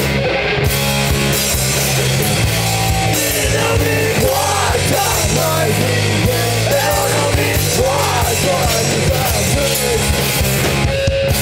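Live rock band playing loud, steady punk-style rock: electric guitars, bass guitar and a drum kit with crashing cymbals.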